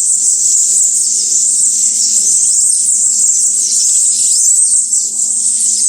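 A continuous high-pitched chorus of many small songbirds twittering and chirping at once, the calls overlapping into a dense, unbroken shimmer.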